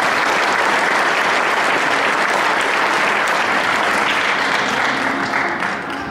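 Audience applauding, a steady dense clapping that eases off near the end.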